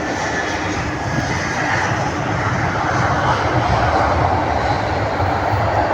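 Airliner's jet engines at an airport, a loud steady rushing noise that swells a little after the first second or so.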